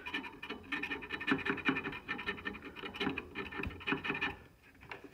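The hub of an RV furnace's sheet-metal combustion wheel being twisted and worked on the motor shaft: rapid, irregular metal-on-metal scraping and squeaking that stops about four seconds in. The wheel is stuck on the shaft, which he thinks is its set screw binding.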